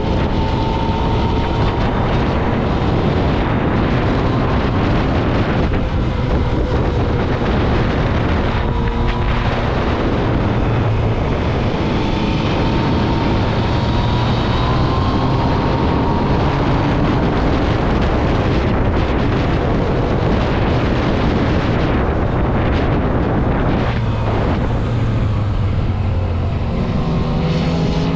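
Motorcycle riding at speed: the engine runs steadily under heavy wind rush on the microphone, its pitch drifting gently up and down and rising near the end.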